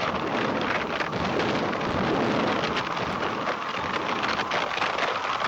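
A storm made by hand-worked sound effects: a steady, dense hiss of artificial rain and wind, with low rumbling like thunder underneath.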